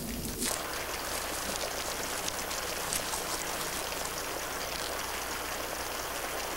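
A steady, even rain-like hiss of outdoor ambience. It thickens about half a second in, with a few faint ticks scattered through it.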